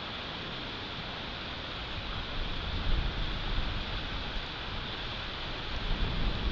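Wind from a snowstorm blowing over an outdoor nest-camera microphone: a steady hiss, with gusts buffeting the microphone about two seconds in and again near the end.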